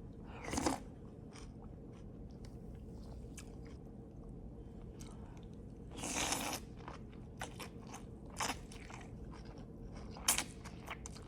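A person chewing and crunching a mouthful of raw vegetable soup with zucchini noodles, mushrooms and onions: steady small crunching clicks with a few louder bites, one longer noisy burst about six seconds in.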